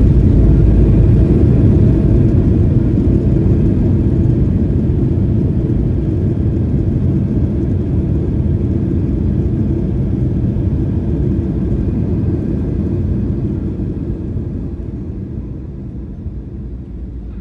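Jet airliner's cabin rumble during the landing roll-out: a loud low rumble of engines and wheels on the runway that gradually fades as the plane slows down.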